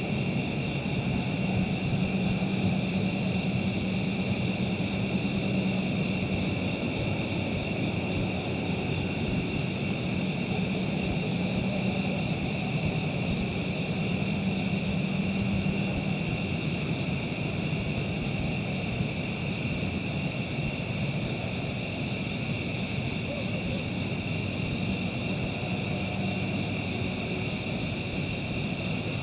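Steady night-time insect chorus: several constant high-pitched chirring bands, over a low steady hum.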